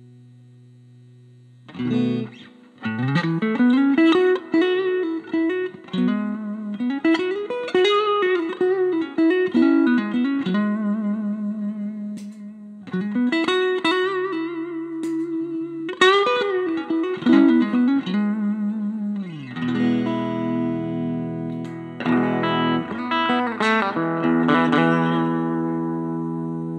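Electric guitar played through a Veri-Tone Arcturus class A preamp pedal: single-note lead phrases with string bends, then strummed chords left ringing in the last third.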